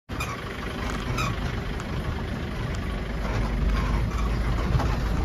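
Motor vehicle running, a steady low rumble of engine and road noise heard from inside the moving vehicle, growing a little louder near the end.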